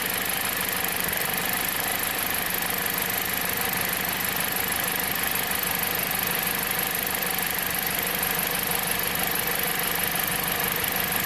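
Jeep Compass four-cylinder engine idling steadily, heard from the open engine bay. It runs smoothly while the ignition coil harness is worked: the intermittent cylinder 1 misfire is not acting up.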